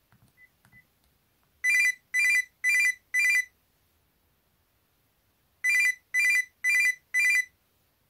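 Built-in "big ringtone" (deka chakushin-on) of an NTT docomo Fujitsu F-06D Girls' flip phone, played through the phone's own speaker: a loud, buzzy electronic ring in two groups of four short rings, about two a second, with a pause between the groups. Before the first ring come a few faint key clicks and two short key beeps.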